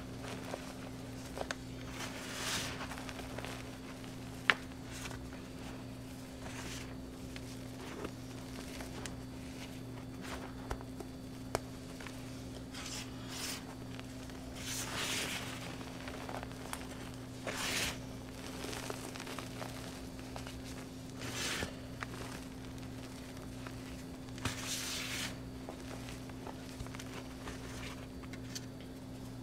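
Hands scooping, squeezing and crumbling loose blue powder with small clumps, giving soft crunchy swishes every few seconds and a few sharp clicks. A steady low hum runs underneath.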